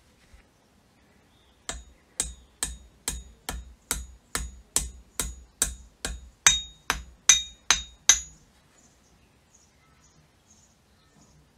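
A hammer striking metal about fifteen times in a steady rhythm, roughly two blows a second, each with a short metallic ring; the blows grow louder toward the end and then stop.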